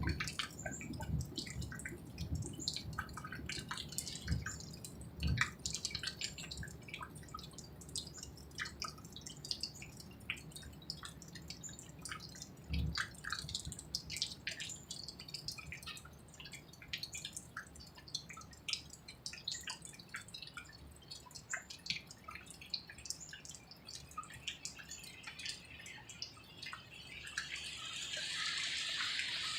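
A faint low rumble, the unexplained noise from the sky, heard with many scattered irregular ticks like dripping. The rumble is strongest in the first few seconds and then thins. Near the end a steady hiss swells up.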